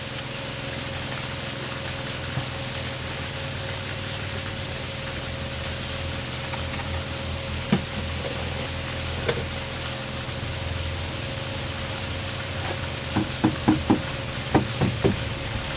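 Ceramic tile being tapped down into a bed of cement mortar: two single knocks, then a quick run of about eight knocks near the end, over a steady hiss.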